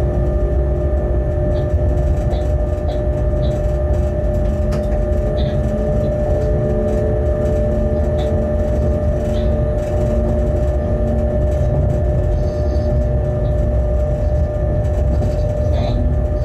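Bombardier Traxx BR 186 electric locomotive running with a freight train: a steady low rumble with a steady hum from the drive. A few faint short high squeaks come and go.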